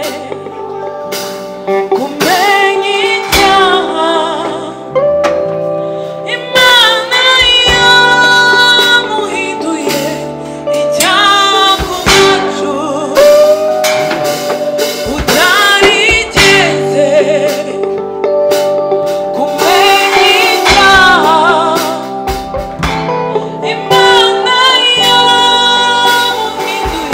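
Live gospel worship music: a band of electric guitar, bass guitar, drum kit and electronic keyboard playing while singers with microphones sing the melody.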